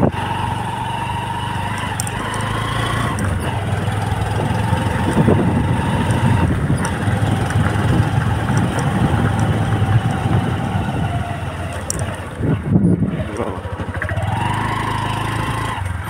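Car engine pulling uphill on a mountain road, a steady engine hum with a whine above it. The sound drops off briefly about twelve seconds in, then builds again.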